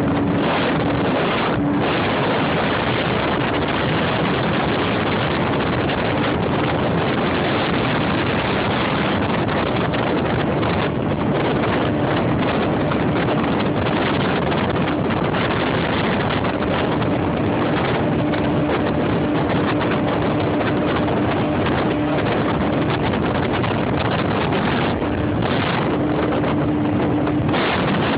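Motorboat running at full throttle: a steady rush of wind and water noise over the phone's microphone, with a faint engine tone coming and going underneath.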